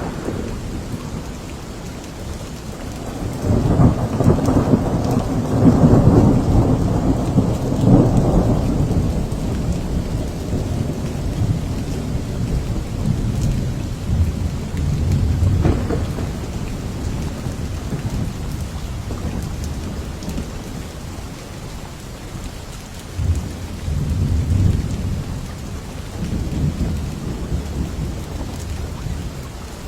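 Steady rain with thunder: a long low rumble swells a few seconds in and fades over several seconds, and a second, smaller roll of thunder comes near the end.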